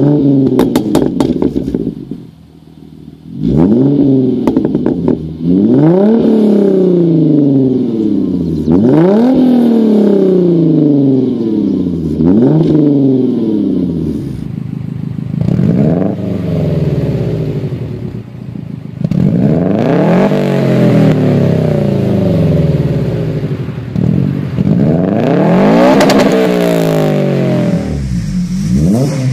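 2013 Hyundai Genesis Coupe's 3.8 V6 through an Ark header-back exhaust, revved repeatedly at standstill: about ten blips, each climbing quickly and falling back slowly to idle. Near the end it cuts to a Honda Civic Type R FN2's four-cylinder on a 70 mm exhaust, revving.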